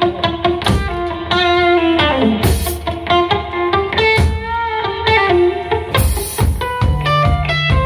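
Live rock band playing an instrumental stretch: electric guitar lines over a drum kit, with repeated cymbal crashes and one guitar note bending down about two seconds in.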